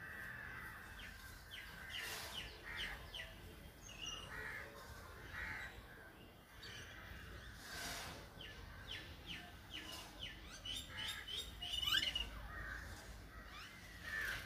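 Birds chirping and calling, with runs of quick, falling chirps, loudest about twelve seconds in.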